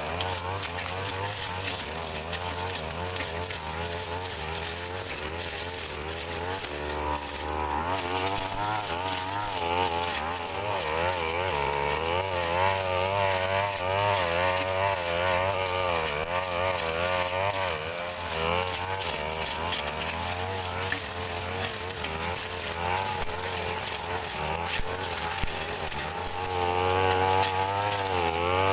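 Two-stroke brush cutter engine running under load while cutting grass, its pitch rising and falling about once or twice a second as the blade bites and frees.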